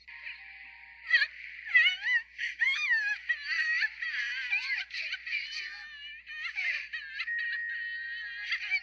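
A young girl's cartoon voice crying and sobbing, starting about a second in, its pitch wavering up and down in short catches, over faint background music. The sound is thin and tinny, cut down to a narrow middle band.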